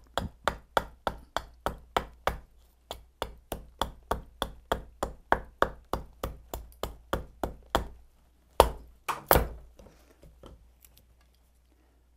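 A thick-bevelled hatchet chopping into a wooden spoon blank, about three quick light blows a second for some eight seconds, then two heavier blows and a few faint taps. The many small chops are cutting a notch where the handle begins on the blank.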